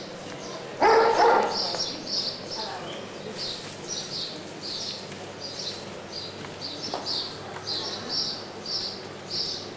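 A dog barks once, loudly, about a second in, over small birds chirping again and again, two or three chirps a second.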